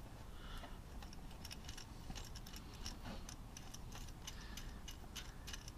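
Faint, irregular small clicks and ticks, several a second, as the throttle cable and linkage on a 150cc GY6 scooter carburetor are worked by hand to free the cable.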